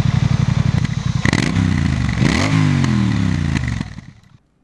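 Motorcycle engine running with an even, rapid pulse, then revved: a short rise about a second and a half in, and a rev that climbs and sinks back after two seconds. The sound fades out near the end.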